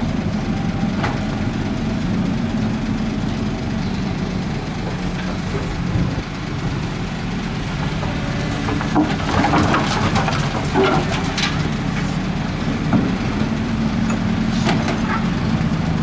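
Caterpillar hydraulic excavator's diesel engine running steadily, with a burst of clatter from about nine to eleven seconds in as a bucketful of dirt and clods drops into the steel bed of a dump truck.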